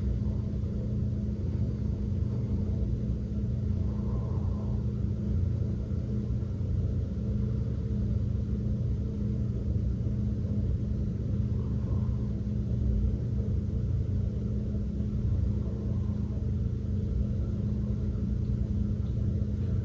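A steady low hum of room tone, unchanging throughout, with no other clear sound.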